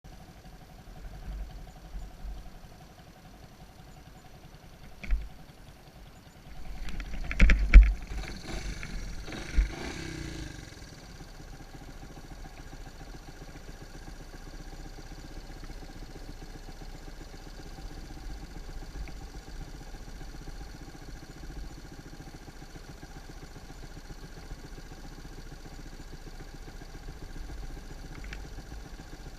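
Honda ATC 125M's single-cylinder four-stroke engine running steadily. A few sharp knocks and a louder burst of clatter come about seven to ten seconds in.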